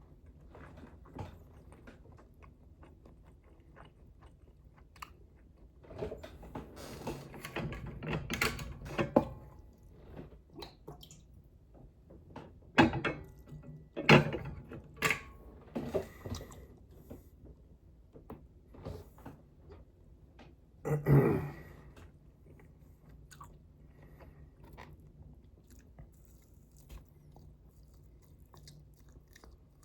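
Close-miked chewing and biting of tough chicken wings, with crunches and clicks coming in uneven bursts. About two-thirds of the way through there is one louder sound lasting about a second, low and pitched, from the eater's throat.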